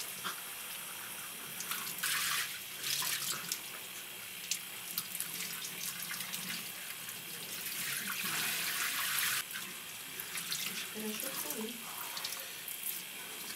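Water spraying from a handheld shower head onto a wet cat in a bathtub: a steady hiss of running water, louder for a moment about two seconds in and again for a second or so around the eight-second mark.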